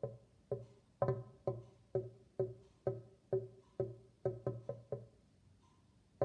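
Kitchen sink drain with a drain basket and covered overflow gurgling: a run of hollow, pitched glugs about two a second as air is drawn down with the water, stopping about five seconds in.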